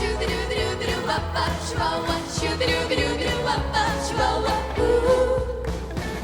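Young vocal group singing over a pop backing track, with a long held note near the end.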